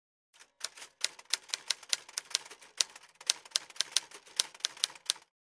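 Typewriter keys clacking in an uneven run of keystrokes, about three to five a second, as a line of text is typed out; the typing stops abruptly near the end.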